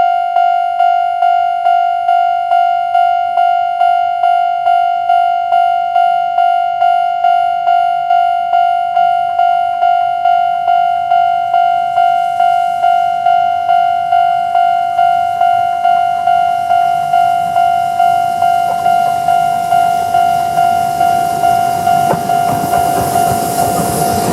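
Japanese level-crossing warning bell of the old standard electronic type, ringing fast at just under two strokes a second. In the last few seconds the noise of the approaching train, a C58 steam locomotive with its coaches, rises loud underneath it.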